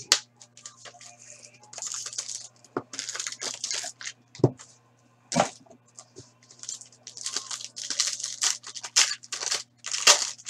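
Foil wrappers of Black Diamond hockey card packs being torn open and crinkled by hand, in repeated rustling rips, with a couple of sharp knocks midway. A steady low hum runs underneath.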